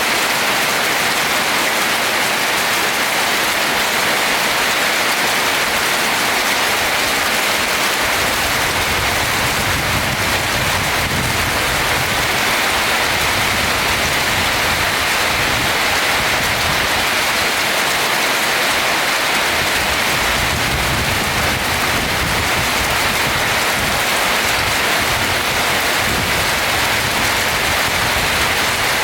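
Steady heavy rain falling on a house roof, a constant even hiss of drops.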